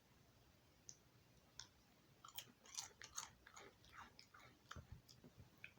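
Cheddar Goldfish crackers being chewed: faint, irregular crisp crunches starting about a second in.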